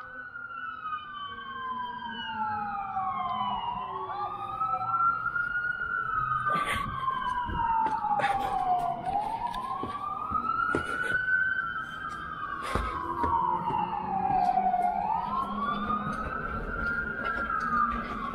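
Emergency vehicle sirens wailing. Each slowly rises and falls in pitch about every six seconds, and two of them overlap out of step. A few short knocks sound in among them.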